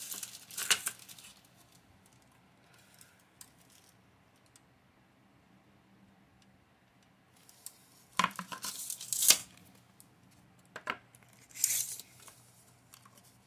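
A steel tape measure being handled against small wooden shelves: a click near the start, then a quiet spell, then a cluster of sharp clicks and short rasping scrapes past the middle and a few more near the end.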